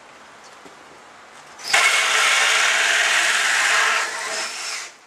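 Power drill cutting the lockset hole through a wooden door, starting about a second and a half in, running steadily, easing a little near the end and then stopping.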